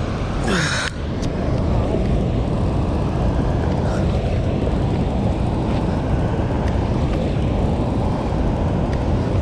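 Steady roar of water rushing through a dam's open spillway gates. About half a second in, a short sound falls in pitch.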